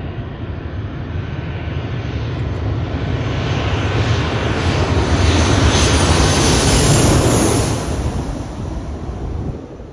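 Twin-engine jet airliner on final approach passing low overhead with its landing gear down. The engine noise builds steadily to a peak about six to seven seconds in, then fades, with a high whine above the deep engine sound. The sound drops off sharply just before the end.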